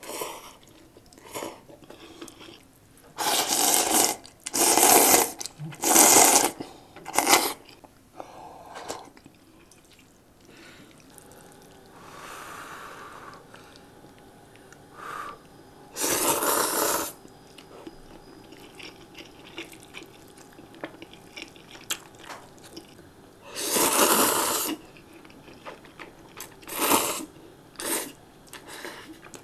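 A person slurping instant ramen noodles: about eight loud slurps of a second or less each, four in quick succession a few seconds in and the rest spread through the later part, with quieter chewing between them.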